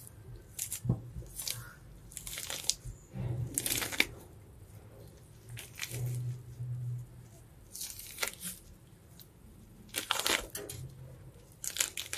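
Membrane being peeled and torn off raw cow tripe (matumbo) by hand in a stainless steel sink: about eight short tearing sounds at irregular intervals.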